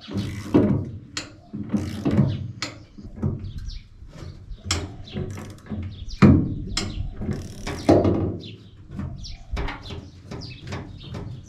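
Hand-cranked winch on a home-built wheel-lifting mechanism being worked, clicking and clanking irregularly as it raises and lowers quad-bike wheels on an aluminium boat, with metal knocks from the linkage; the loudest knock comes about six seconds in.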